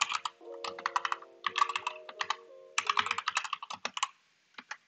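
Typing on a computer keyboard: quick runs of keystrokes with short pauses between them, then a few single key presses near the end.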